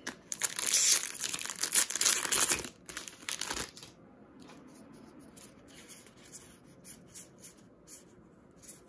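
A Magic: The Gathering Core Set 2020 booster pack's foil wrapper being torn open and crinkled for the first three and a half seconds or so, then faint clicks of the cards being handled and fanned.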